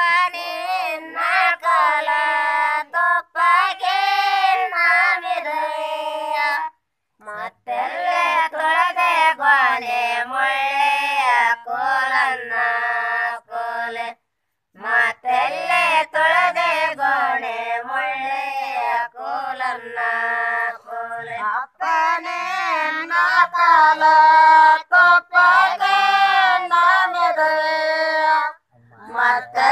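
Women's voices singing a Kannada Gowri festival folk song without accompaniment, in long sung lines with brief pauses about every seven seconds.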